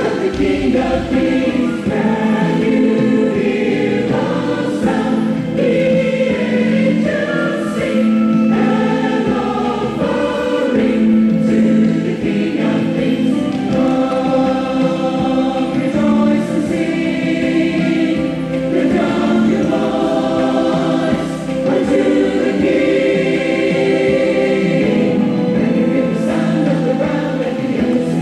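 Music with choir singing in a gospel style, voices holding long sustained notes.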